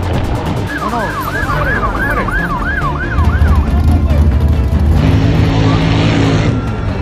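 An electronic siren yelping, a fast rising-and-falling wail, for about two seconds starting about a second in, over loud engine noise. From about three seconds a race vehicle's engine takes over with a deep, steady drone.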